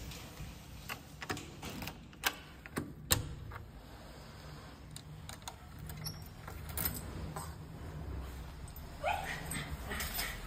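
Keys jingling and clicking in a door lock as the door is unlocked, a run of sharp clicks with the loudest about three seconds in. Near the end, a Shiba Inu gives a short rising whine.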